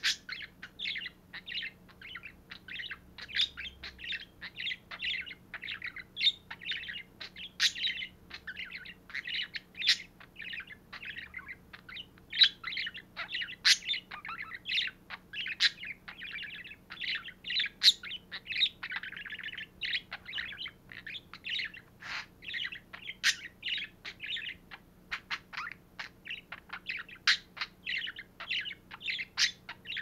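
Pet budgerigar warbling and chattering nonstop: a rapid, unbroken run of chirps, clicks and squeaky notes.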